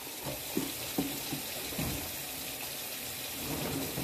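Children sipping and swallowing lemonade from plastic cups, a few soft gulps in the first two seconds. A steady hiss runs underneath.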